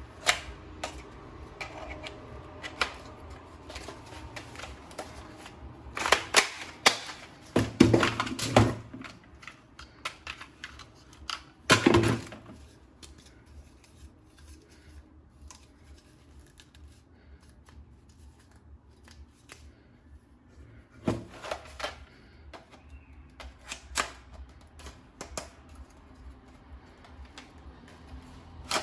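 Plastic clicks, knocks and rattles from handling a toy gun and its parts: scattered light clicks with a few louder clusters of knocks about six, twelve and twenty-one seconds in.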